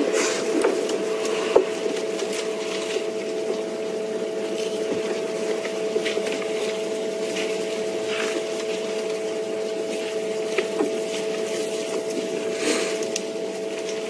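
African elephant feeding in thorny bush, snapping and stripping branches: scattered cracks and rustling of twigs throughout, over a steady low hum.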